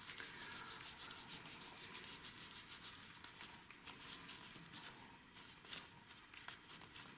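A dry cellulose nail pad rubbed quickly back and forth over a freshly cured hybrid gel nail, wiping off the sticky inhibition layer. It is a faint, rhythmic scrubbing at about five strokes a second, which slows to scattered strokes after about three seconds.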